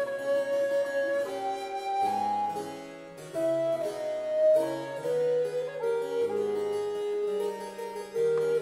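Recorder and harpsichord playing a late-Baroque sonata: the recorder carries a melody of long held notes over the harpsichord's plucked, moving bass line.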